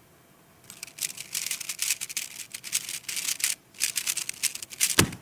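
Speedcube being turned very fast by hand: a rapid, dense run of plastic clicking for about four seconds during a sub-5-second 3x3x3 solve. It ends in a single sharp slap near the end as the hands come down on the timer.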